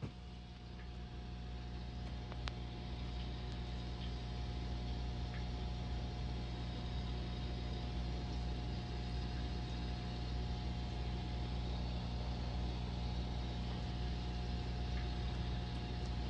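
Steady mechanical hum of reef aquarium equipment (pumps and water circulation), with a thin constant tone running above the low drone.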